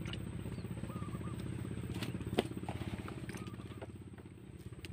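A motorcycle engine running steadily at low revs, dying away near the end, with one sharp click about two and a half seconds in.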